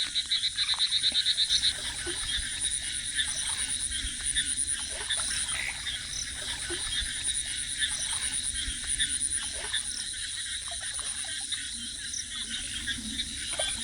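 Frogs calling in chorus, with a steady high, fast pulsing of insects over them. In the first two seconds one loud call repeats rapidly, about ten pulses a second.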